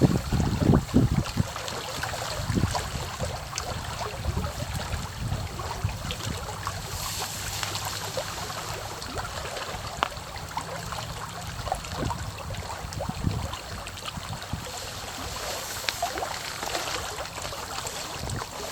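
Pond water lapping against the bank, a steady wash dotted with small splashes and trickles. Wind buffets the microphone in the first second or so.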